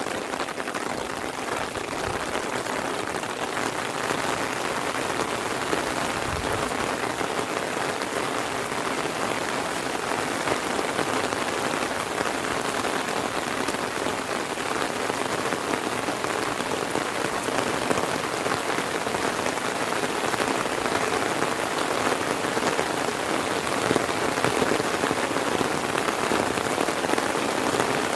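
Heavy rain falling steadily, a dense hiss of drops striking the ground and surfaces close by, with a brief low rumble about six seconds in.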